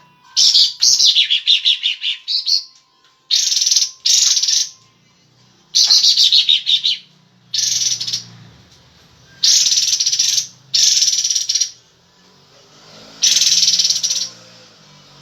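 A kapas tembak songbird singing vigorously, in breeding condition. Its song comes as repeated short bursts of fast, high, rattling chatter, about eight phrases with brief pauses between them.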